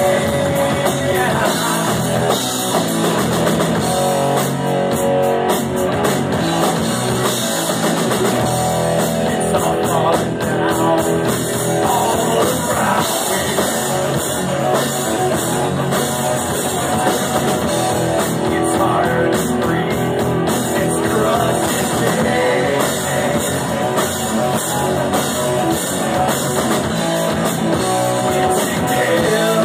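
Live rock band playing continuously: electric guitar, bass guitar and drum kit.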